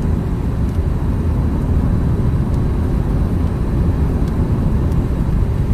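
Steady road and engine noise inside a moving car's cabin, a low rumble, with a few faint ticks.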